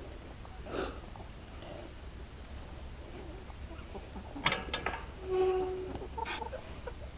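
Chickens foraging: a quick cluster of sharp clicks and knocks about four and a half seconds in, then a hen's short call held on one pitch, with a shorter call just after.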